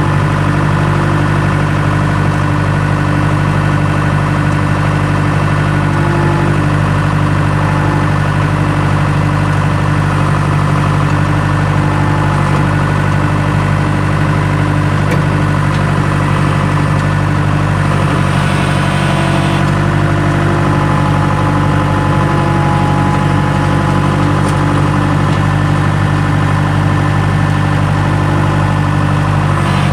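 Skid steer engine running steadily at a constant speed, with a brief hiss about two-thirds of the way through.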